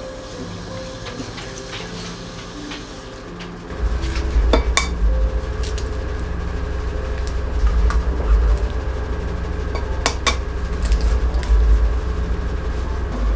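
Two eggs being cracked, each with a pair of sharp taps, the second egg about five and a half seconds after the first, over a steady low rumble.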